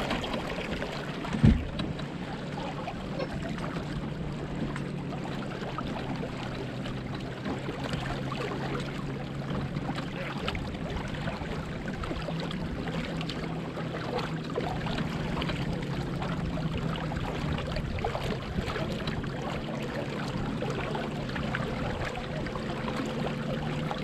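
Water washing along the hull of a Catalina 22 sailboat under way, with a steady low hum underneath. A single sharp knock comes about a second and a half in.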